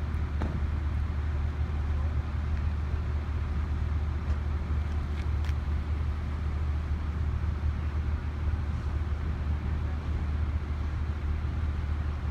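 A steady low engine rumble with an even background hiss, unchanging throughout.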